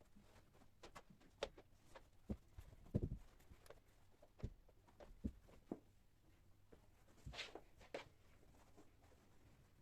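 Faint, irregular light knocks and clicks of household objects being handled and set down during house cleaning, with a brief rustle about seven seconds in.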